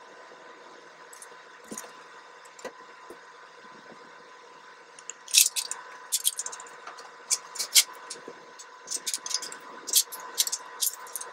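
A steady hum throughout. About halfway in, a quick, irregular series of sharp clicks and clacks begins and runs on to the end.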